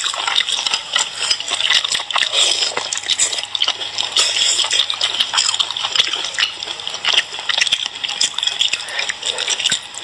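Close-miked wet chewing and slurping of cooked sea snail meat, with frequent small clicks and taps as the shells are handled.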